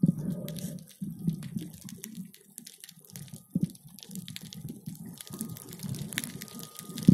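Muffled water sound of a camera held underwater in the sea: irregular low swishing surges as the water moves around the housing, with a fine crackle of clicks throughout and a couple of sharper knocks.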